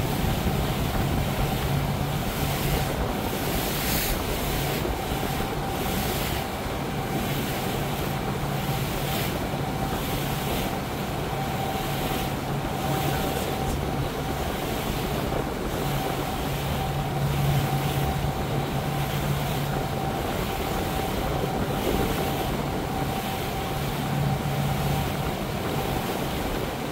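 Regal motorboat running steadily underway, its engine a constant low hum with a thin steady whine above it. The hum sits under the rush of water from the wake and wind buffeting the microphone.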